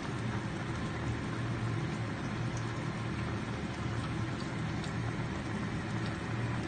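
Pot of sautéed cabbage and fish simmering, with faint bubbling and a few small pops over a steady low hum.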